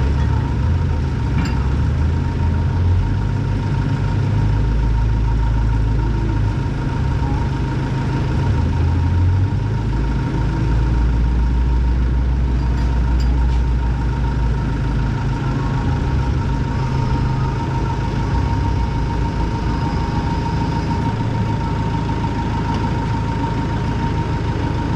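Kubota L6060 tractor's four-cylinder diesel engine idling steadily, with a steady whine above it.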